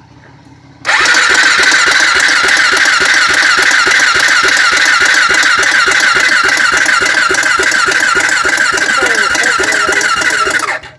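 Honda 400EX's single-cylinder four-stroke engine being cranked on its electric starter, turning over with an even beat of about five pulses a second but not catching. It cranks for about ten seconds and then stops suddenly, still refusing to start.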